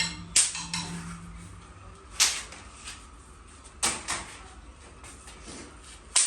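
Sharp clacks of hard objects knocking or being set down, four loud ones a second or two apart, with a few lighter knocks between them.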